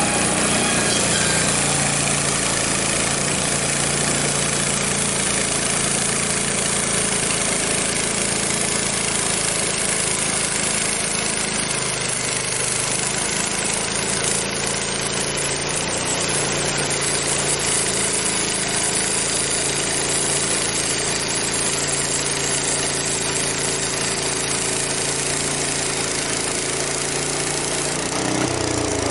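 Frontier OS23 portable band sawmill running steadily as its band blade cuts a slab through a maple log, the engine under load with the blade's sawing noise over it. The engine note shifts near the end.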